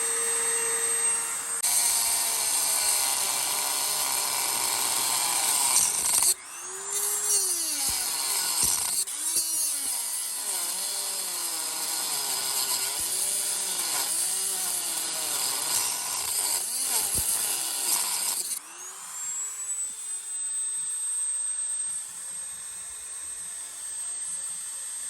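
A power tool cutting into a steel car door hinge pin, with a steady, grinding noise. For much of the time its pitch repeatedly dips and recovers as it bites under load. About three-quarters of the way through it drops to a quieter, steadier run.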